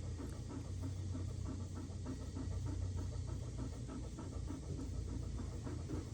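A dog panting quickly and evenly, breathing in and out in a steady rhythm.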